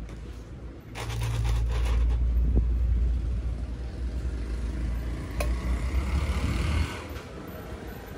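A loud low rumble from about a second in that cuts off near the end, while liquid is poured from a stainless steel pitcher over ice in a tall plastic cup, with a single sharp click partway through.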